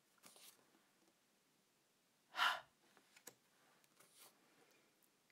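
A single breathy 'h' phonics sound, a short voiceless puff of breath, about halfway through. Around it come faint swishes and a click of stiff card flashcards being slid across a wooden table.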